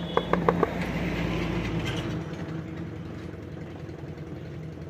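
About six quick, sharp metallic clicks in the first second, over the steady hum of an idling engine.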